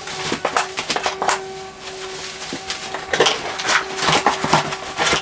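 A long cardboard shipping box being opened by hand and its paper-wrapped contents pulled out: cardboard and paper rustling and scraping, with many short knocks and taps.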